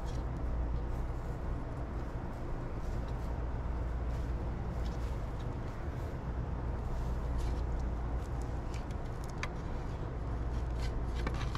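A steady low mechanical hum, like a running engine, with a few faint light clicks and taps, mostly in the second half, as plastic pipe fittings are handled.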